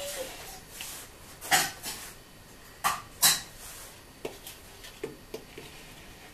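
A metal spoon knocking and scraping in a plastic mixing bowl: a handful of separate sharp clinks spread over a few seconds.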